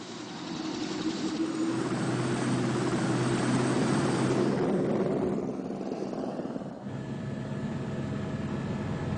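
Helicopter in flight, a steady engine and rotor drone that builds over the first couple of seconds and then holds.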